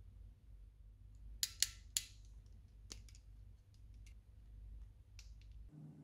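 Small pliers clicking against a Dupont connector pin as they crimp it onto a wire: three sharp clicks close together about a second and a half in, then a few fainter clicks, over a low hum.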